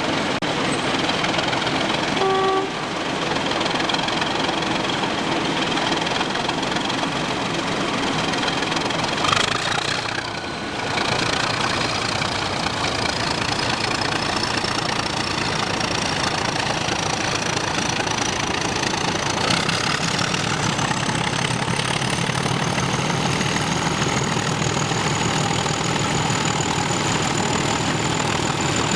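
English Electric diesel-electric locomotives (Y class and X class) notching up and pulling away, their engines working hard under load with a high whine that climbs slowly in pitch through the second half. A brief tone sounds about two and a half seconds in, and a sharp click comes about nine seconds in.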